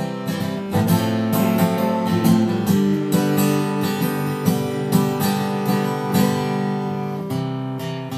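Acoustic guitar played with the fingers: chords strummed and left to ring, with single notes picked in between, growing quieter near the end.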